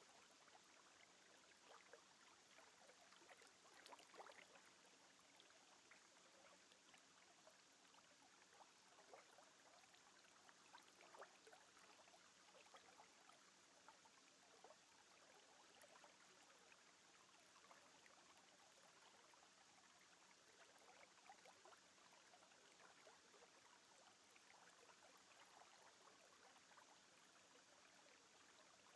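Near silence: a faint, even hiss with scattered tiny crackles.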